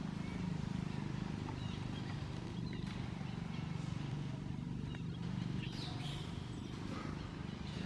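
Outdoor ambience: a steady low hum with scattered short, high chirps and squeaks.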